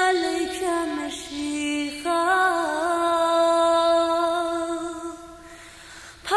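A woman singing a slow hymn alone, without accompaniment, in long held notes. A new phrase begins about two seconds in and fades into a short breath pause near the end.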